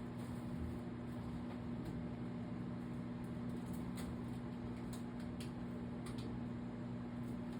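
Steady low mechanical hum with faint scattered ticks.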